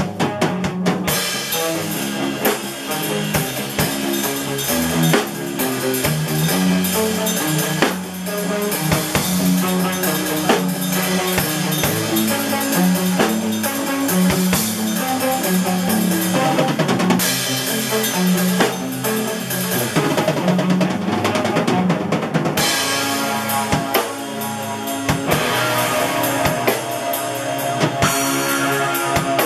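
Electric guitar and a Pearl drum kit playing a piece together live, the guitar holding sustained chords and lines over a steady beat of bass drum, snare and cymbals.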